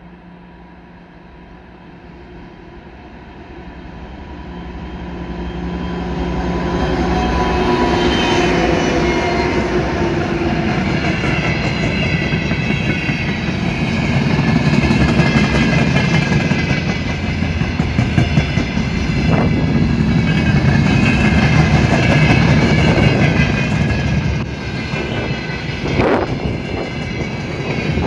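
Freight train led by a 2TE116 diesel-electric locomotive: the engine hum grows louder over the first several seconds as it approaches and passes. Then a long string of freight wagons rolls by with steady wheel clatter over the rail joints, high wavering wheel squeal, and a few sharp knocks.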